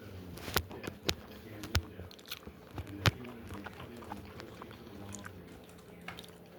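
Close-up sounds of a person chewing and eating, with several sharp mouth clicks, the loudest about three seconds in.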